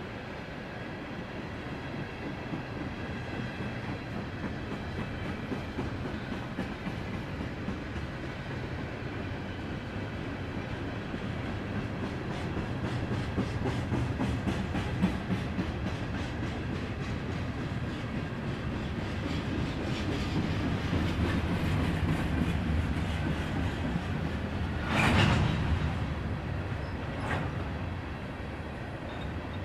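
Norfolk Southern freight train rolling past, a steady low rumble with rhythmic clickety-clack as the wheels cross the rail joints. Near the end there is a brief louder noise, followed by a fainter one.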